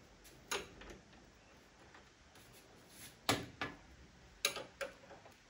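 Irregular sharp metallic clicks and knocks of a spanner working a transportation bolt out of the back of a washing machine: a couple near the start, then a quicker run of four or five from about three seconds in.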